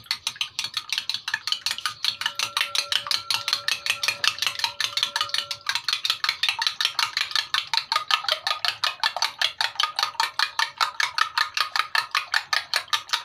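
Metal spoon beating two raw eggs in a glass bowl, clicking against the glass in a fast, even rhythm of about seven strokes a second.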